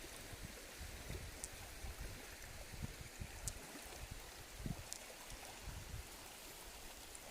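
Wind gusting against the microphone in low, uneven rumbles over a faint steady hiss, with a few short sharp ticks.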